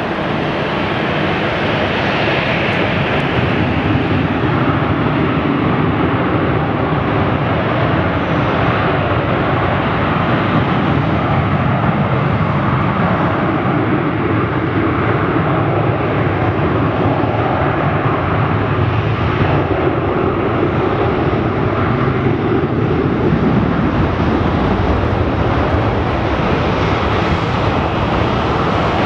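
Boeing 727-200 tri-jet on its takeoff roll, its Pratt & Whitney JT8D turbofans running at takeoff power through the run-up and lift-off. The sound is loud and steady throughout.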